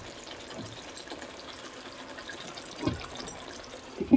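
Fish curry simmering and bubbling in a wok. There is a dull knock about three seconds in and a louder knock near the end as a glass lid is set onto the pan.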